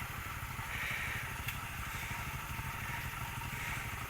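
Motorcycle engine running steadily, a rapid low pulsing with no clear rise or fall in revs, and one faint click about a second and a half in.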